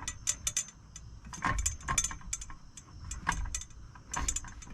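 Brass couplers inside a 42-inch Peterbilt two-bend straight shifter pole clinking and rattling against the inside of the pole in a scatter of short, sharp knocks. The fittings are loose inside the pole, which is harmless.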